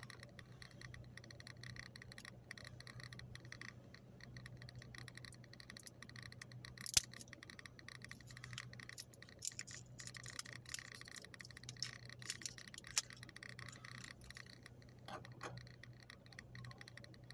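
Faint small plastic clicks and scrapes as the seal and cap of a hot sauce bottle are picked at by hand, with a sharper click about seven seconds in. Under them runs the steady low hum of the car's air conditioning.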